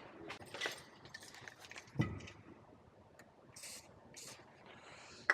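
Lock picking: a pick and tension wrench working inside a door lock, giving a scatter of faint metallic ticks and clicks, with a sharper click about two seconds in and another near the end.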